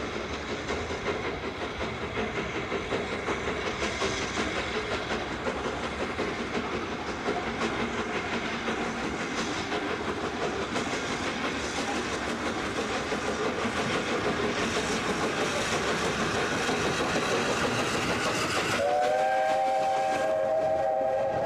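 BR Standard Class 8P Pacific 71000 Duke of Gloucester, a three-cylinder steam locomotive, working hard as it gets its train under way: steam exhaust beats over the rumble of the train, growing steadily louder. About three seconds before the end, a whistle sounding several notes at once starts and holds.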